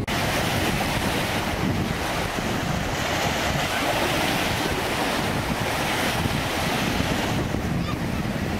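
Small sea waves breaking and washing up onto a sandy shore, with strong wind buffeting the microphone.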